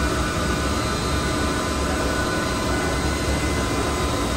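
Steady drone of distillery process equipment: a deep hum with several steady whining tones over it.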